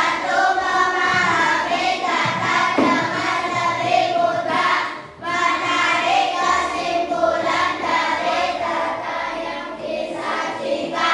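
A group of young children singing a song together in unison, with a short breath break about five seconds in.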